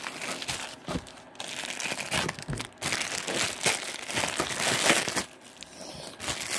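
Hands squishing and stretching white fluffy slime close to the microphone: a dense run of irregular crackles and small pops.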